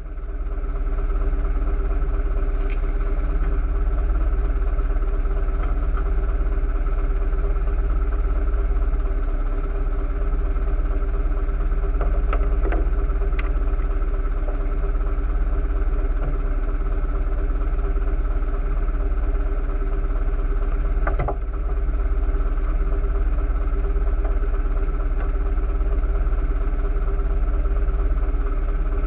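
A boat's engine running steadily, with a few light clicks over it.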